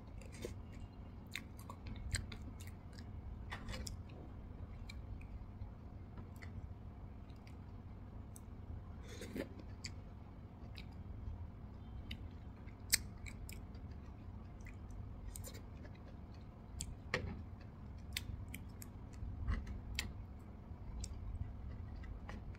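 A person chewing a mouthful of soft strawberry Swiss roll and whipped cream: irregular wet mouth clicks and smacks, with a sharper click about thirteen seconds in.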